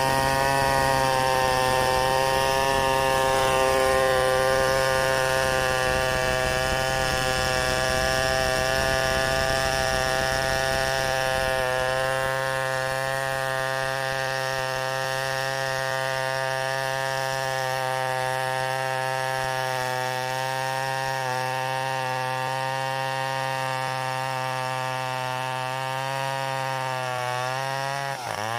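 Chainsaw running at a steady pitch through one long cut, the sound thinning slightly about twelve seconds in and the pitch wavering just before the end.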